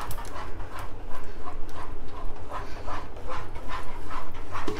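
Black plastic spatula stirring hot custard and mango puree quickly around a non-stick wok: a rhythmic swishing and scraping, about three to four strokes a second.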